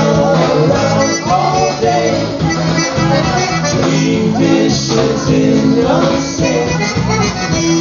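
Live polka dance band playing a dance tune at full volume, with a man singing over it.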